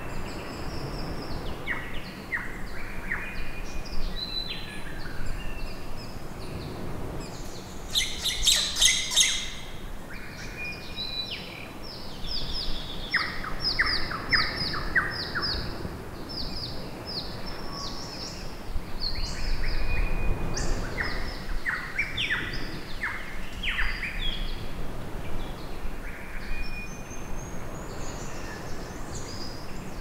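Several wild birds calling and singing: assorted chirps and whistled notes, a loud harsh rattling call about eight seconds in, and a fast run of evenly repeated high notes near the middle. A steady low rumble lies underneath.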